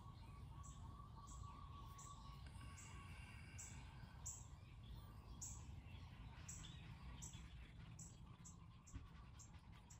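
Quiet outdoor background: a short, high chirp repeating about once or twice a second, coming faster near the end, with a brief higher call about three seconds in, over a low steady rumble.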